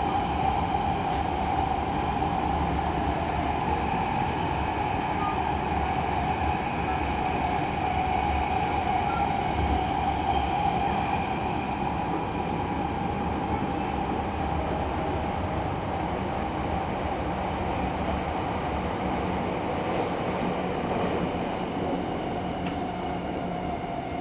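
Tokyo Metro 10000 series subway train heard from inside a car, running in tunnel: a steady rumble of wheels and running gear with a strong tone that sinks slightly in pitch as the sound eases a little, and an occasional faint click.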